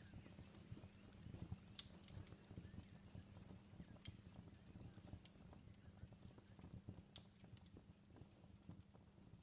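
Faint fireplace wood fire crackling: sparse sharp pops, roughly one a second, over a low steady rumble.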